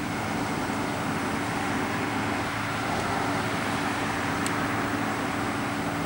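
A parked truck's engine running at a steady idle, with cars passing on the street and a single sharp click about four and a half seconds in.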